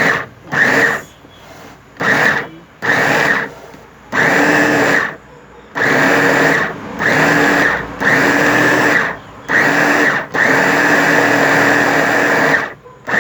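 Small electric mini meat grinder running in short pulses, its motor whirring with a steady whine each time the button is held down and stopping when it is let go. About ten bursts of under a second each, and a final longer run of about two seconds near the end.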